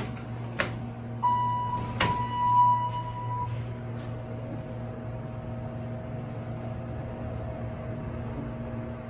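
Elevator in operation: a steady machine hum, two sharp clicks, and a steady electronic beep lasting about two seconds that starts a little over a second in.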